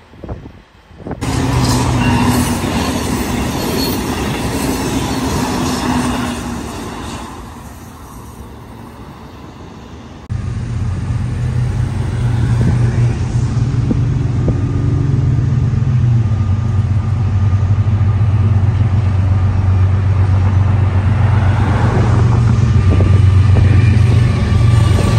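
Diesel locomotives of a Florida East Coast freight train passing a road crossing, their engines making a steady low drone. Road traffic goes by at the same time. Before this, for several seconds, a different passing-train noise starts suddenly about a second in and fades out.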